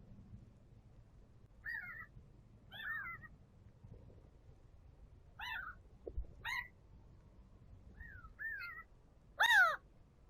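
A series of about eight short, high mewing calls, each rising then falling in pitch, spaced irregularly, with the loudest near the end.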